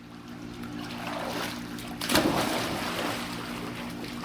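Splashing, rushing water over a steady low hum, growing louder for a moment about two seconds in.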